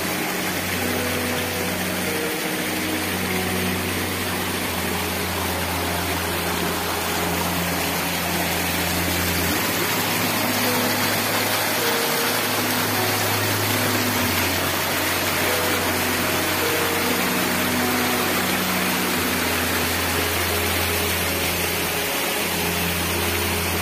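Steady rushing water, like a forest stream, with slow background music of long held low notes that shift every second or two.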